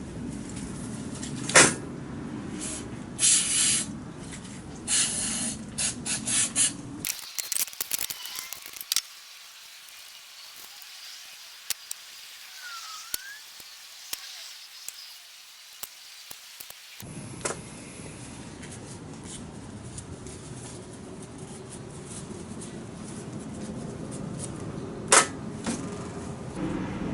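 Short bursts of hiss from an aerosol spray, typical of carburetor cleaner being sprayed on a carburetor's parts, with clicks and taps of small parts being handled. A quieter stretch in the middle holds a single brief chirp.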